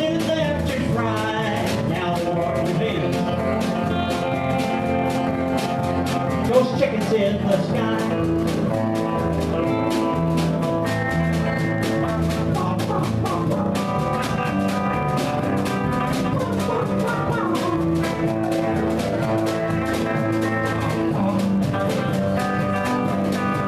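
Live jam band playing together, with strummed acoustic guitars, an electric bass and a steady drum beat.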